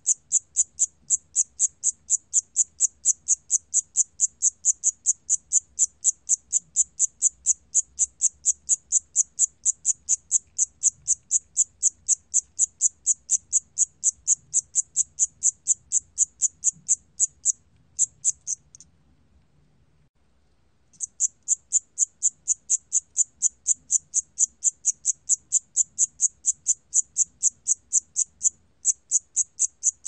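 A Siamese cricket (샴귀뚜라미) chirping at 28 °C: short, high-pitched chirps repeated evenly at about four a second. The chirping stops for about two seconds about two-thirds of the way through, then resumes at the same pace.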